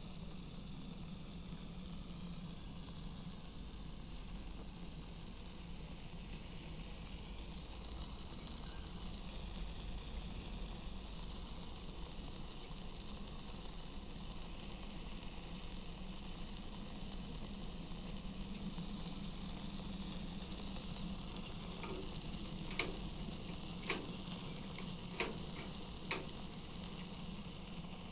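Barbecue grill sizzling: a steady frying hiss, with a few sharp crackles near the end.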